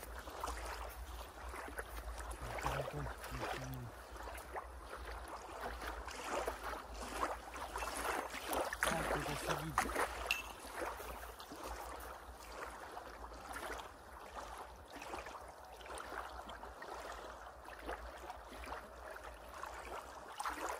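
Small waves lapping and washing onto a sandy lake shore, an irregular splashing wash.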